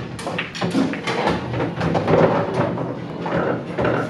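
Pool balls clacking and knocking against each other many times in quick, irregular succession, over background bar chatter.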